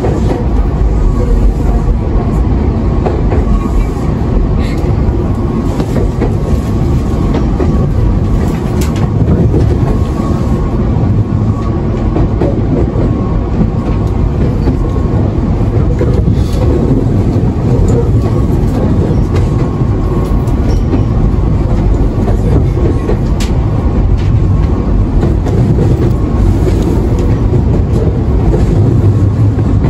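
Running sound inside a Nankai 1000 series electric train car between stations: a steady, loud wheel-on-rail rumble with occasional clicks.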